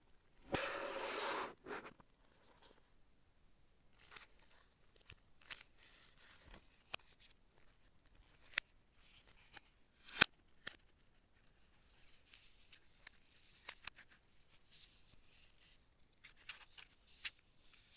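Keyboard unboxing packaging being handled: a rough rustling, tearing noise about half a second in lasting about a second, then scattered light taps and clicks, with one sharp click about ten seconds in.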